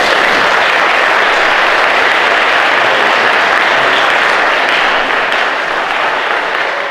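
Crowd of wedding guests applauding in a church: dense, steady clapping that starts at once and eases slightly near the end.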